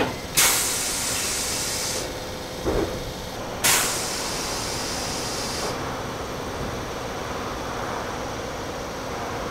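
Meitetsu 200 series electric train standing at the platform after stopping: two sharp bursts of compressed-air hiss about three seconds apart, each lasting a second or two, with a dull thump between them, then a steady hum from the stationary train.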